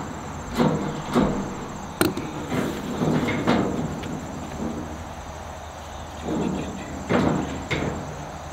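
Scattered knocks and clanks of a metal handle and screwdriver against the sheet-metal smoker cabinet as the rear handle is screwed on. Insects chirr steadily and high underneath.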